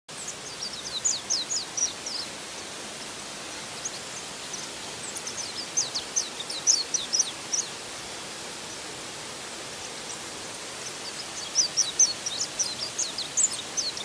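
Steady rush of a waterfall plunging into its pool. Over it a bird sings three phrases of quick, high, down-slurred notes: near the start, in the middle, and near the end.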